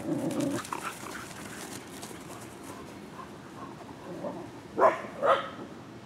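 Dogs at play: a short dog vocal sound at the start, then a dog barking twice, about half a second apart, near the end.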